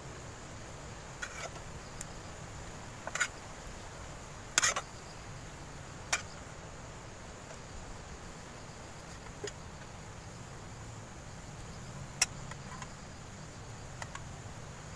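Spoon clinking and scraping against a small metal plate and pot as someone eats: short sharp clicks every second or two, the loudest about four and a half seconds in and again near the end, over a steady low background hum.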